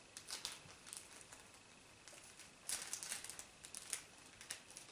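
Faint crinkling and rustling of small plastic candy packets being handled, in several short bursts, the loudest a little under three seconds in.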